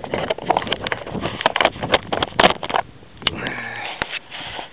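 Handling noise from a handheld camera being carried and swung about: a quick run of clicks, knocks and rubbing for about three seconds, then a short low hum near the end.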